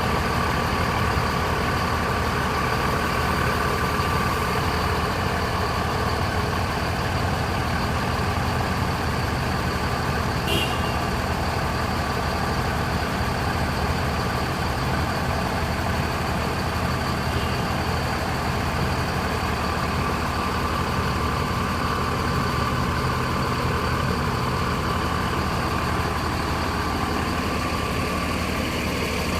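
Bus diesel engine idling steadily while being warmed up, a continuous low rumble with a steady whine on top. One brief sharp click cuts across it about a third of the way through.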